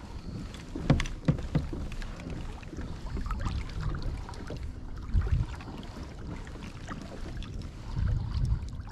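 Wind buffeting the microphone and water sloshing against a kayak hull, with a few sharp knocks about a second in and again around five seconds.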